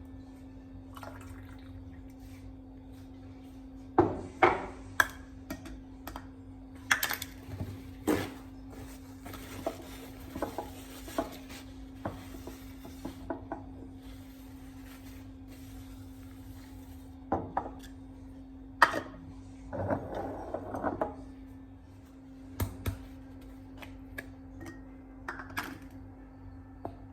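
Kitchen utensils and dishes clinking and knocking, in irregular clusters of sharp clinks, over a steady low hum. A short burst of noise comes about twenty seconds in.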